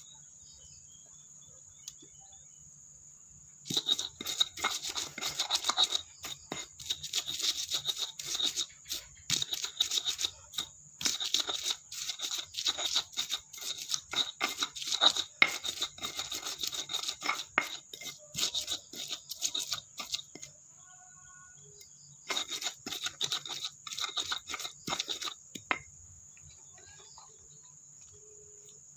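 Rapid, irregular scratching and tearing in long bursts, typical of vegetables being prepared by hand, over a steady high insect trill.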